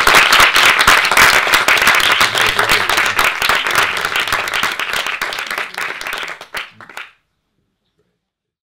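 Audience applauding, the clapping thinning and fading out over the last few seconds before it cuts off abruptly about seven seconds in.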